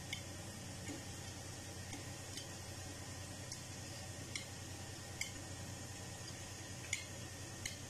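Hot oil sizzling steadily around sesame-coated mutton heart tikka pieces shallow-frying in a pan, with about eight short sharp ticks spread through.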